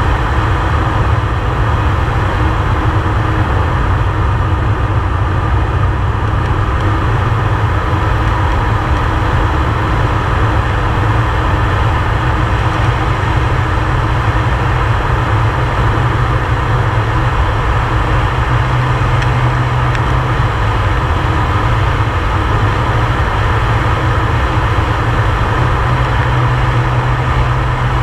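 Air Tractor 502XP's turboprop engine and propeller droning steadily in flight, heard from inside the cockpit. The low hum swells a little twice, in the second half.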